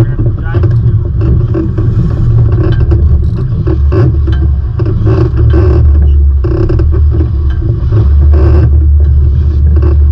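Wind buffeting the camera microphone, a loud steady low rumble, with water rushing and splashing past the hulls of a trimaran under sail.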